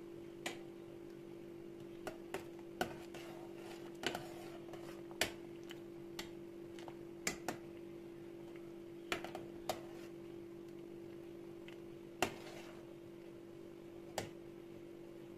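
Metal ladle clinking against a white enamel pot while stirring simmering cornelian cherry compote: about fourteen sharp, irregular taps. A steady low hum runs underneath.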